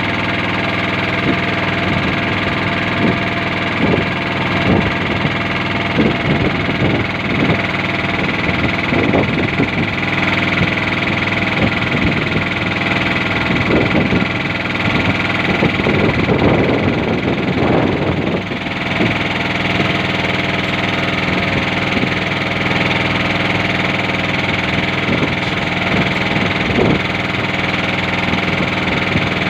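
Small boat engine running steadily, with irregular short thuds over it, most of them in the first two-thirds.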